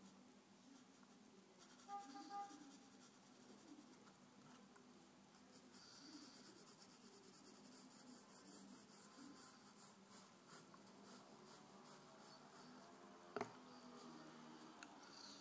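Faint scratching of a graphite pencil sketching and shading on paper, with a single sharp click near the end.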